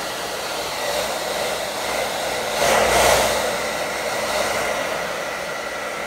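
Handheld hair dryer blowing steadily with a faint whine, briefly louder about halfway through.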